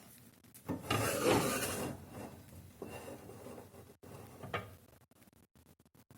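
Things being rubbed and scraped as they are shifted about, loudest about a second in, with a sharp knock about four and a half seconds in.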